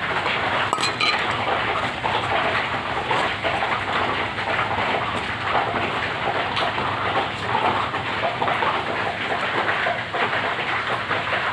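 Heavy rain falling steadily, a dense, even hiss, with a brief clink of a metal pan about a second in.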